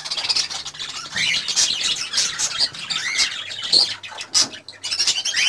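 Cockatiels calling, a string of short squawking and chirping calls that sweep up and down in pitch.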